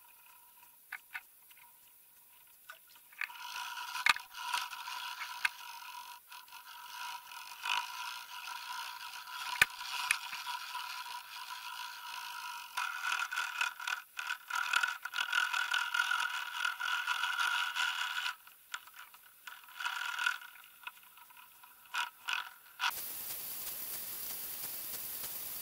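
Scraping, rattling and sharp knocks heard through an underwater fishing camera's housing as the camera is jostled and dragged about on the bottom. The noise starts a few seconds in and stops abruptly near the end, where it gives way to a steady hiss.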